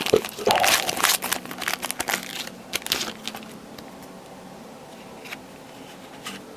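Trading-card pack wrapper crinkling and tearing as a pack is opened, stopping about three seconds in.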